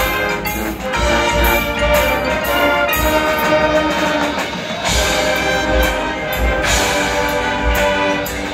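Marching band playing a brass-led passage with sustained chords, backed by regular bass drum hits and cymbal splashes.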